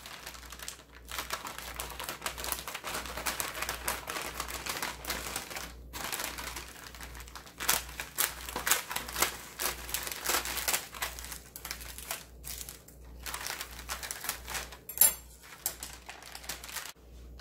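Scissors snipping through a plastic pouch of folded seasoned laver sheets: many short, irregular snips with the plastic crinkling, a few louder than the rest.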